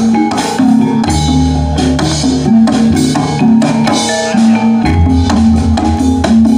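Javanese gamelan music for a buto gedruk dance: tuned metal mallet instruments play a repeating melody over drum strokes, with the deep drum pattern coming back strongly about five seconds in.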